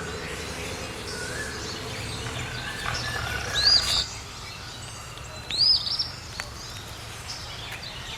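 Wild birds calling: a few lower whistles, then two loud, sharp, arched chirps about three and a half and five and a half seconds in, over a steady low background noise that drops away about four seconds in.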